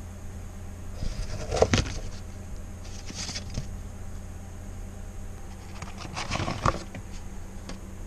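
A kitchen knife cuts down through a stack of cucumber slices on a paper plate, in three short bouts of crisp cutting: about a second in, around three seconds and near six seconds. A steady low hum runs under it.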